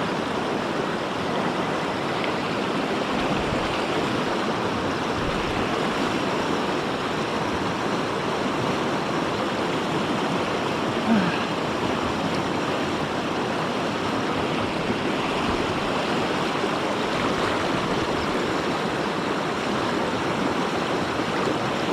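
Swollen mountain river rushing steadily over rocks, still running high after heavy rain.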